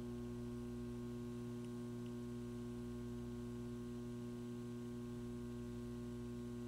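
Steady low electrical mains hum, a constant buzz with a ladder of evenly spaced overtones and no change in pitch or level.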